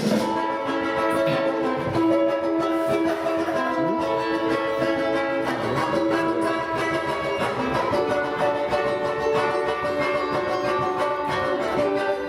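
A small live band playing a song through a PA system, with ukulele and guitar carrying many sustained chords and notes.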